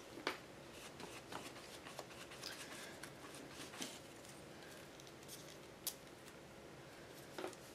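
Faint handling of a paintbrush and paper: a brush working gel medium over collage tissue paper on a journal page, with a few soft ticks and rustles scattered through.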